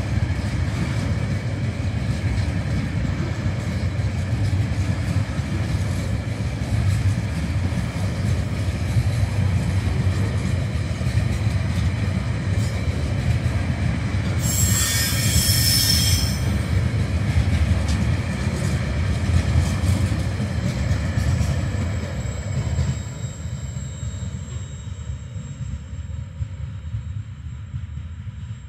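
Container flat wagons of a freight train rolling past, with a steady low rumble and clatter of wheels on rail. About halfway through there is a brief, piercing, high-pitched wheel squeal lasting a couple of seconds. The rumble fades away in the last quarter as the end of the train passes and recedes.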